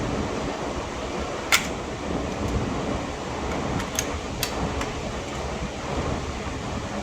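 Steady rushing background noise with a few sharp clicks: the loudest about a second and a half in, and two more close together around four seconds.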